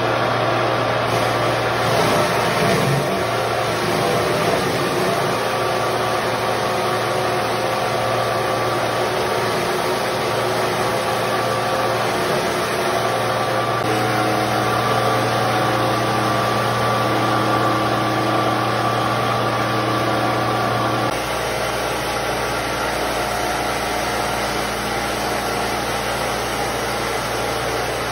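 Motor of a stainless-steel rosehip pulping machine running steadily with a constant hum as it crushes cooked rosehips into pulp. The low tone of the hum changes about three quarters of the way through.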